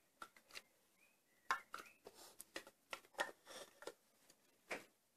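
Brio wooden toy train and carriage pushed by hand along wooden track: a quiet, irregular run of light wooden clicks and knocks as the wheels and pieces bump on the track.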